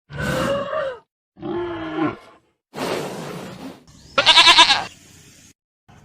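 A series of four separate animal calls, each about a second long with short silent gaps between them. The first two are pitched calls, the third rougher and noisier, and the last and loudest, a little past four seconds in, has a fast wavering pulse.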